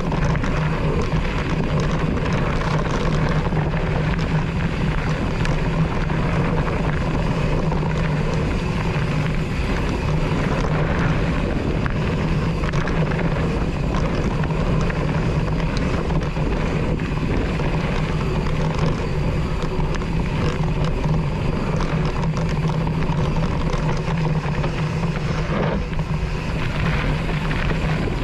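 Mountain bike riding down a dirt and gravel trail, heard from a handlebar-mounted camera: a steady rushing tyre and ride noise with a constant low hum and frequent small rattles and knocks over the rough ground.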